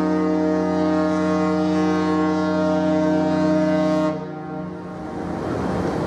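Cruise ship's horn sounding one long, steady, deep blast that cuts off about four seconds in, leaving a rushing background noise.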